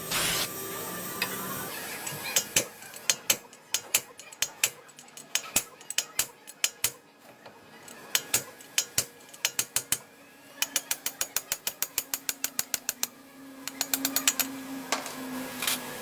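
Hand ratchet wrench clicking in runs of sharp clicks, sometimes quick at about six a second and sometimes slower and uneven, as a fastener is turned.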